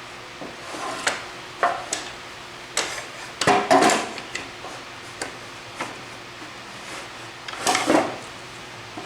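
A piece of wood being slid and handled on a table saw with the saw switched off, a dry-run cut: irregular knocks and short scrapes of wood on the table and fence, loudest in a cluster about three and a half seconds in and again near eight seconds.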